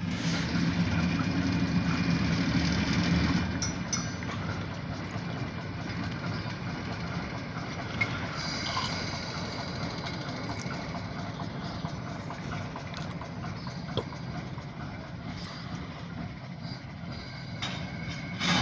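Diesel locomotive engine running with a steady low rumble, loudest over the first three seconds or so and then settling lower, with a few faint clicks.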